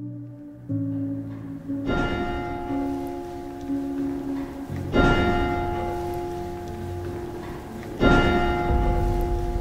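A church bell tolling slowly: three strokes about three seconds apart, each ringing on and fading into the next, with music underneath.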